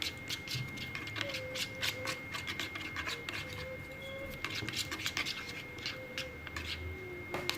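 Hands handling a slime kit's small paint pot and cup, making a steady run of light clicks, taps and rustles.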